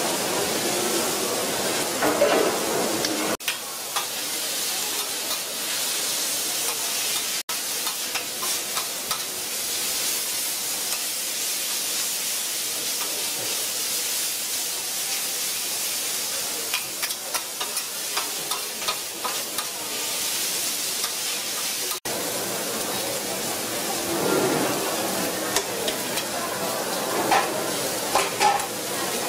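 Stir-fried noodles and vegetables sizzling on a hot iron griddle, with repeated scraping and clicking of metal spatulas against the plate as the food is tossed and chopped.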